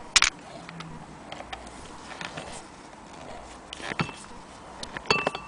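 Loose metal rods being handled, giving sharp clicks and knocks: a loud one just after the start, then metallic clinks with a brief ring about four seconds in and again just after five seconds.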